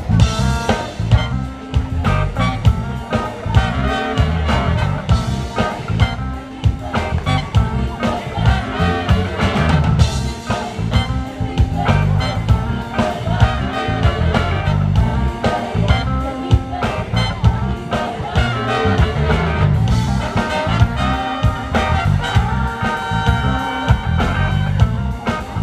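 Live band with a horn section playing through a song's ending: drum kit, a moving bass line and horns, rehearsing the horns' newly changed part.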